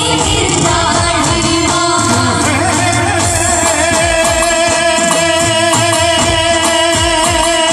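Live Gujarati garba band played loud through a PA sound system: singing over drums, keyboard and guitar, with a steady driving drum rhythm.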